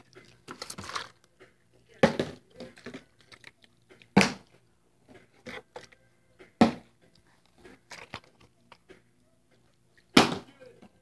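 Plastic water bottle being flipped and hitting a wooden tabletop again and again: four sharp knocks about two seconds apart, the last after a longer gap, with lighter clatter between.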